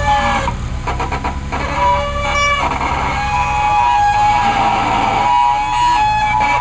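Engine of an off-road trial buggy running at low revs as it crawls down over a boulder: a steady low rumble with held high whining tones over it that shift pitch now and then.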